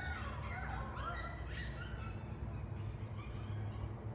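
A group of coyotes howling and yipping together, with many overlapping short rising and falling calls that thin out and fade away about halfway through, over a steady low rumble.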